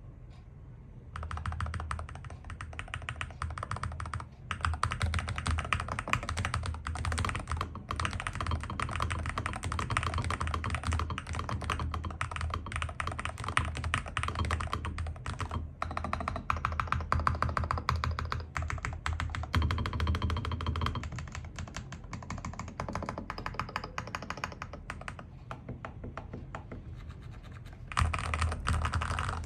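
Epomaker HE75 V2 TMR mechanical keyboard being typed on steadily: a dense, irregular stream of keystroke clacks that starts about a second in, gets lighter for a while and picks up again near the end.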